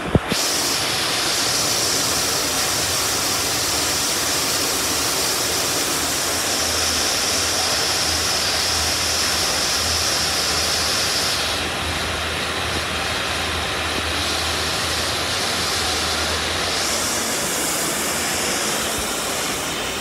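Loud, steady rush of a large waterfall, an even wash of water noise. The high hiss in it thins for a few seconds past the middle.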